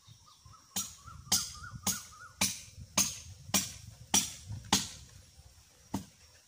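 Hard blows on wood at a steady pace of about two a second, eight in a row, then one more after a short pause.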